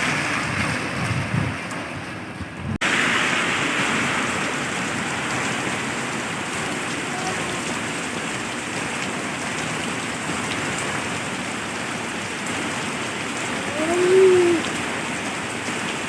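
Heavy rain falling steadily, a dense even hiss of rain on surfaces, with an abrupt break about three seconds in. A brief pitched call rises and falls near the end and stands out above the rain.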